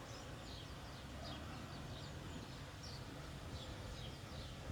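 Faint, short bird chirps, several scattered through the few seconds, over a low steady background rumble.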